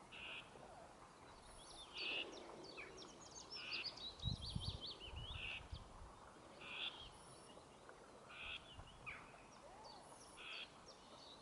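Songbirds singing faintly: quick high chirps and trills, with one short call repeating every second or two. A few low thumps come about four to five seconds in.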